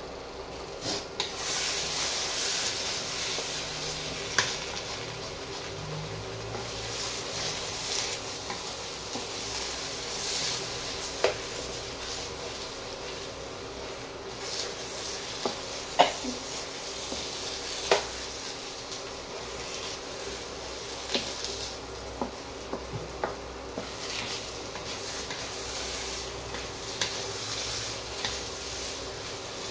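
Eggs and sardine-chili paste sizzling in a non-stick wok while a wooden spatula stirs and scrambles them, the hiss swelling with each round of stirring. Several sharp knocks of the spatula against the pan stand out, the loudest about 16 and 18 seconds in.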